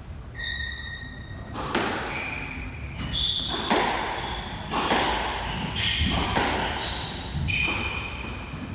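Squash rally: the ball is struck sharply off rackets and walls about once a second, with sneakers squeaking on the wooden court floor between hits.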